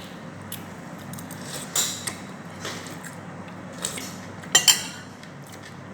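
Cutlery clinking and scraping against a plate during a meal of rice and fish curry, in a string of short sharp strikes, the loudest a quick pair about four and a half seconds in.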